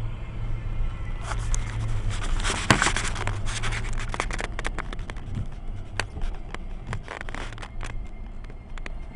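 Off-road vehicle's engine running steadily at low revs, heard from inside the cab. From about a second in there is a dense run of sharp clicks and scrapes, loudest near three seconds, then thinning to scattered clicks.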